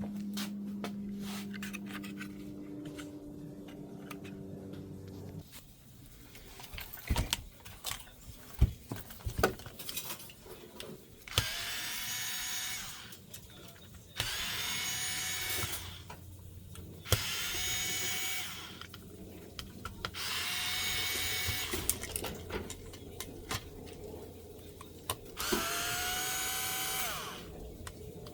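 A cordless electric screwdriver or drill whirs in about five short runs of a couple of seconds each in the second half, its pitch rising as it spins up and dropping as it stops. Before that come a low steady hum and scattered clicks and knocks of parts being handled.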